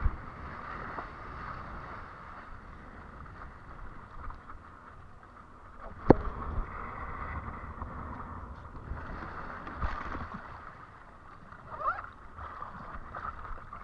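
Water rushing and splashing against a windsurf board, with wind on the microphone and sharp knocks at the start and about six seconds in.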